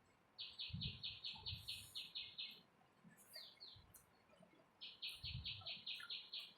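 A bird calling: a rapid run of about a dozen sharp, evenly spaced high notes, about five a second, then two short falling notes, then another rapid run near the end.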